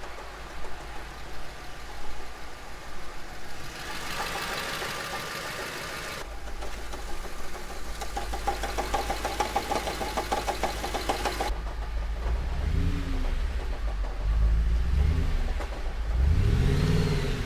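Audi S4's V8 engine running with a rapid, regular knock, then revved in three short blips near the end, the pitch rising and falling each time.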